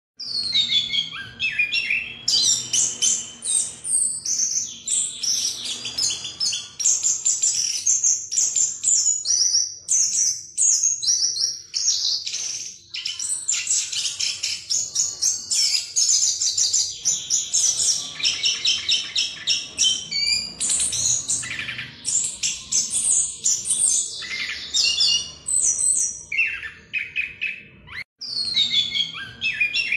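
Caged chestnut-capped thrush (anis kembang) singing a long, unbroken rolling song of rapid high notes and trills, the 'ngerol' style, with a brief break just before the end.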